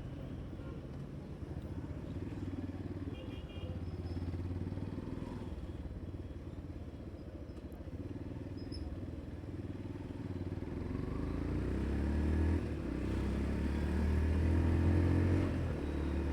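Motorcycle engine running while riding. About ten seconds in it accelerates with a rising note, dips briefly, then climbs again near the end.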